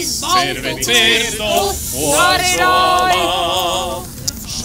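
Unaccompanied singing: two sung phrases of long held notes with a wide vibrato, fading out shortly before the end.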